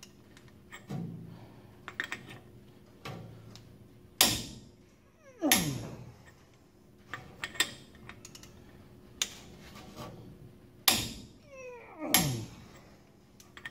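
Rear axle castle nut being tightened under heavy load with a socket on a long bar: four sharp creaks and pops as the nut and socket give way in jerks, in two pairs. The second creak of each pair slides down in pitch.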